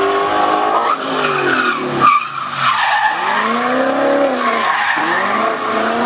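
Drift car sliding sideways with its tyres squealing and smoking, the engine revs falling away, then rising and dropping again as the driver works the throttle through the slide.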